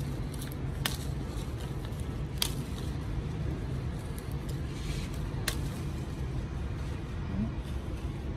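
Lime leaves snapping off their stems as they are picked by a gloved hand: three sharp snaps, about one, two and a half and five and a half seconds in, over a steady low background rumble.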